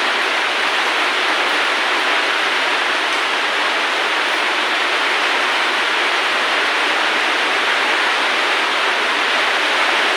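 A steady, even rushing hiss with no breaks or changes in level.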